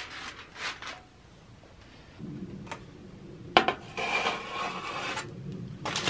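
Aluminium foil crinkling and rustling as it is handled and peeled back from a pan of rolls, with one sharp knock a little past halfway.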